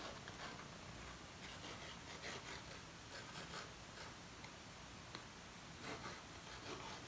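Faint, irregular scraping of a knife trimming pie-crust dough along the edge of a baking pan.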